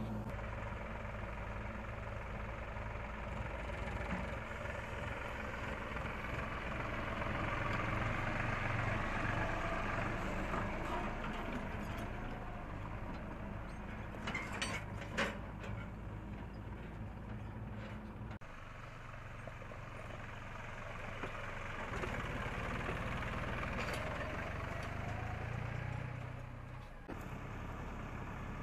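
Diesel engines of a JCB 3DX backhoe loader and a New Holland 4710 tractor running steadily during loading, with a few sharp knocks about halfway through.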